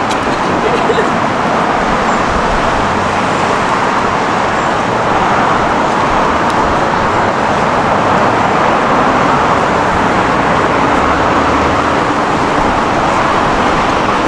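Steady road traffic noise of a busy city street, an even rush of passing vehicles with no distinct events standing out.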